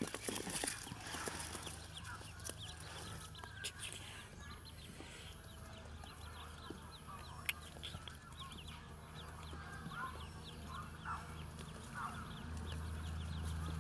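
Ducklings peeping: many short, high cheeps through the whole stretch, over a low steady hum.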